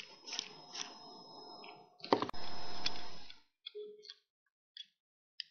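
Small metal handling sounds of watchmaker's tools on a mechanical watch movement: a rustling, scraping stretch with a few sharp clicks, loudest about two seconds in, then a run of small separate ticks and clicks as steel tweezers lift a wheel from the movement.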